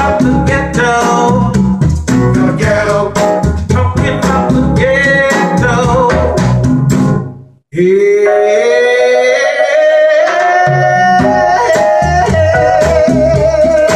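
Recorded music with singing, guitar and drums, played through Western Electric 16A horn loudspeakers. About halfway through it fades out and breaks off briefly. A different piece then starts with long held notes that slide up in pitch at first.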